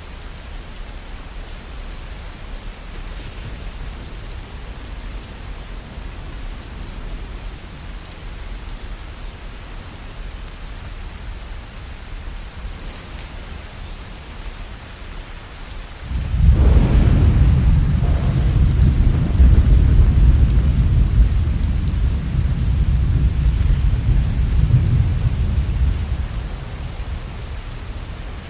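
Steady heavy rain, with a thunderclap a little past halfway: a sharp crack followed by a deep rolling rumble that lasts about ten seconds and fades out before the end.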